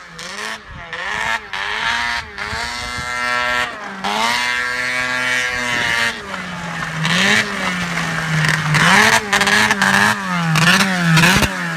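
Arctic Cat ZR440 snowmobile's two-stroke twin revving up and down repeatedly as it is ridden, held high for a couple of seconds around the middle, then several quick rev rises near the end. The rebuilt engine is sounding a little sick: the owner says it still needs a fuel pump and a carburettor tune.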